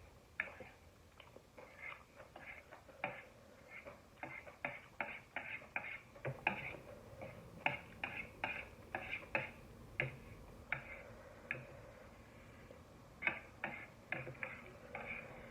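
Close-miked chewing of spicy ramen and enoki mushrooms: a run of wet mouth clicks and smacks, several a second at an uneven pace, with a short lull a little past the middle.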